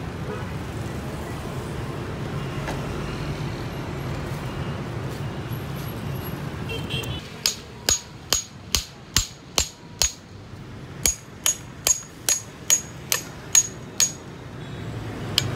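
A hammer striking the back of a large cleaver to split a grouper lengthwise through the backbone: about fifteen sharp metallic knocks, two or three a second, each with a short ring. The knocks start about halfway through, after a stretch of steady low background noise.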